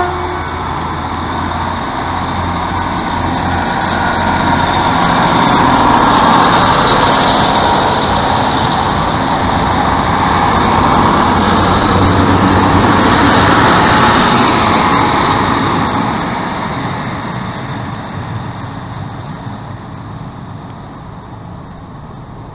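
Diesel multiple unit made up of a Class 153 railcar and a Class 150 unit pulling away and passing close by: underfloor diesel engines and wheels on the rails build to a peak over about six seconds, hold, then fade as the train moves away.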